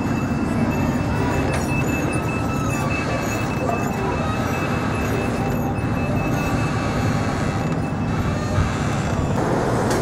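Steady city street noise from passing traffic, with a thin high-pitched whine held through the first half.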